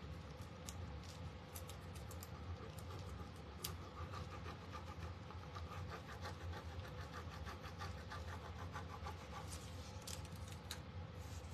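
Faint, rapid scratching of a small burnishing stick rubbed back and forth over the clear backing sheet of a rub-on transfer on a wooden cutting board, pressing the design down, with the backing sheet peeled up near the end to check it has stuck.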